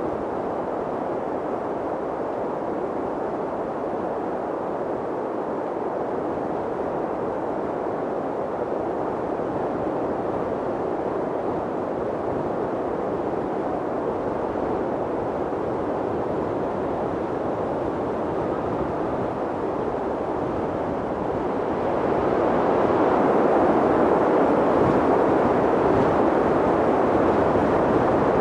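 Strong mountain wind blowing steadily, a dense, dull rushing noise with no gusts or breaks, swelling louder near the end.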